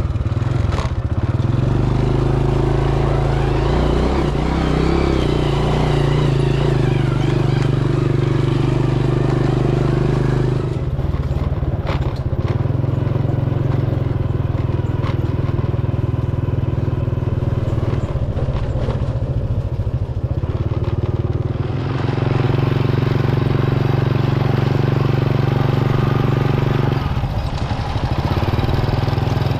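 Vehicle engine running while under way, with a steady low drone whose pitch steps up and down a few times.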